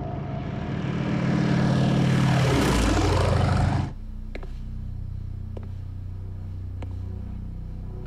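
Propeller airplane engines droning as the plane flies past, swelling to their loudest about two and a half seconds in, then cut off abruptly just before four seconds. A quieter low steady hum follows, with a few faint ticks.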